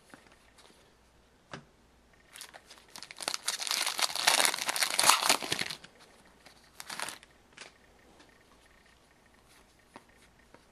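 Trading card pack wrapper crinkling and tearing as it is opened: about three seconds of dense crackle starting a couple of seconds in, then a shorter crinkle about seven seconds in.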